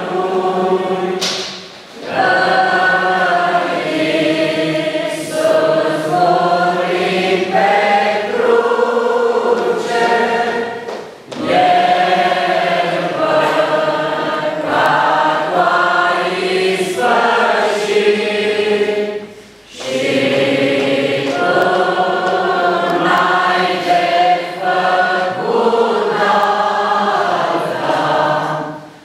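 Church congregation singing a hymn together in sustained phrases, with brief pauses between lines about every eight or nine seconds.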